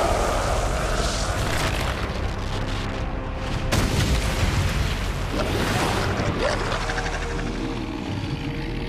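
Cartoon sound effects of a deep, continuous rumble with earth and rock bursting apart, sharpest about four seconds in, over background music.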